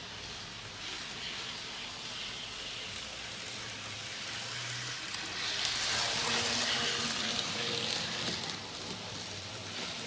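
Fleischmann HO-scale DC model train running on its track: a steady hiss of wheels rolling on the rails, louder for about three seconds in the middle as the coaches pass close by, with a faint hum.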